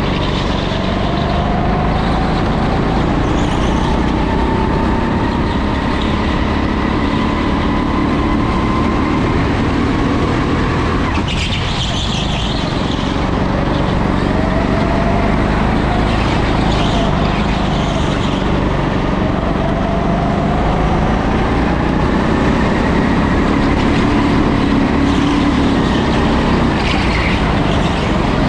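Racing go-kart's motor heard close up from on board, its pitch rising and falling as the kart slows for corners and accelerates out of them, with a brief hiss of noise about eleven seconds in.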